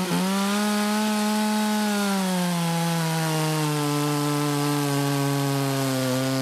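Maruyama 3100S two-stroke petrol chainsaw at full throttle, cutting through a log about 15 cm across. About two seconds in, the engine pitch sags as the chain bites deeper into the wood, and it then runs steadily under load.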